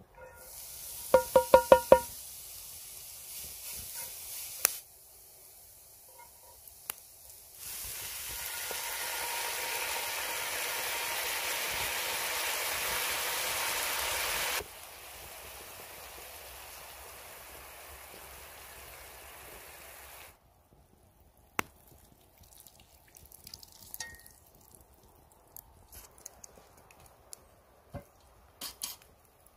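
Diced onion sizzling in hot oil in a cast-iron skillet, then onion, garlic and sliced chilli frying, in stretches that start and stop abruptly, loudest in the middle. A quick run of ringing taps comes about a second in, and the last third is much quieter, with scattered pops and clicks.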